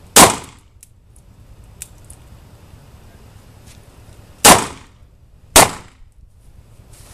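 Three single gunshots from students firing on the line: one just after the start, then two more about four and five seconds later, a second apart, each dying away quickly.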